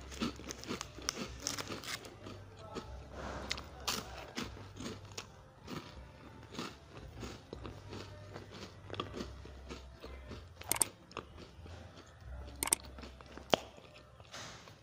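Close-miked chewing of a mouthful of crisp chocolate snack cake: irregular crunching and wet mouth clicks, with a few sharper crunches near the end.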